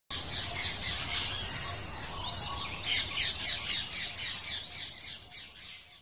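A flock of budgerigars chattering, many overlapping high chirps and warbles, fading out near the end.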